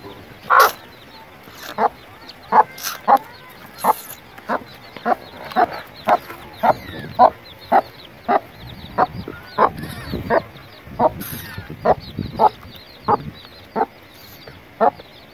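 Mother hen clucking steadily to her chicks, short clucks about two a second, with the chicks' faint high peeping behind.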